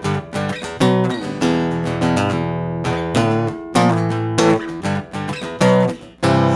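Acoustic guitar strumming chords in an instrumental break of a song, with sharp strokes in an uneven rhythm and a brief drop just before the end.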